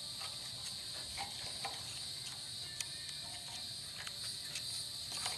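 A steady, high chorus of insects, with scattered light clicks and knocks from metal sawmill parts being handled.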